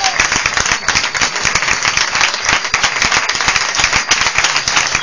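Audience applauding: dense, steady clapping with no rhythm.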